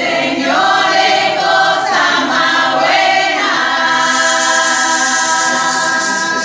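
Women's choir singing a bullerengue in close harmony, unaccompanied. The voices come in together at once, move through a few notes, then hold one long chord from about three seconds in.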